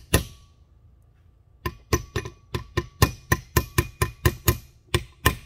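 Claw hammer tapping a steel punch to drive a new oil seal into a 1989 Suburban's wheel hub. There is one strike, a pause of about a second and a half, then a quick run of light taps at about four a second. The seal is not yet seated all the way and is being tapped down to seat it.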